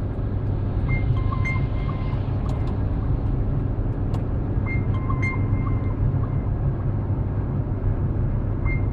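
Steady road and engine noise of a car at motorway speed, heard from inside the cabin, a dense low rumble. Faint short tones recur about every four seconds.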